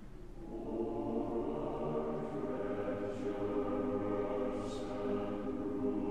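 Background music of choir voices holding slow, sustained chords, swelling in about half a second in.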